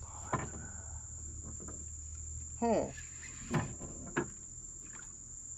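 Steady high-pitched drone of insects in the waterside vegetation, with a few short sharp knocks and a brief falling pitched sound about two and a half seconds in, the loudest moment, as a spinning rod and reel are handled.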